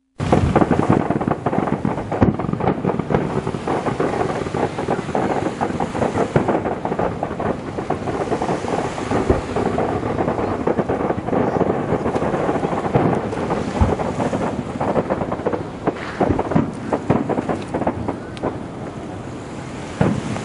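Fireworks display: a dense, unbroken barrage of aerial shells booming and crackling, starting abruptly. In the last few seconds it thins out into separate, sharper booms.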